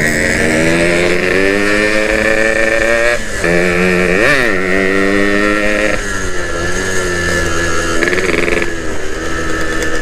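Yamaha RX-King two-stroke single-cylinder motorcycle engine under way. The revs climb for about three seconds and drop sharply, blip up and down just after four seconds, then settle lower after about six seconds.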